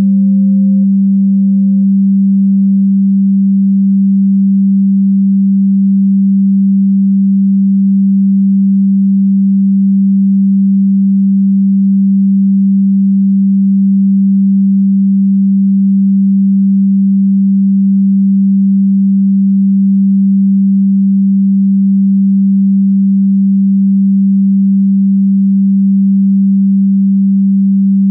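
A steady, low-pitched pure electronic sine tone, loud and unchanging. A fainter, higher tone alongside it dies away over the first few seconds.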